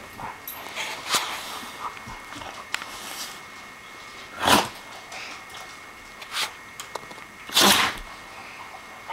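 A Doberman right at the microphone gives two sharp, sneeze-like snorts about three seconds apart, with a few fainter sniffs between.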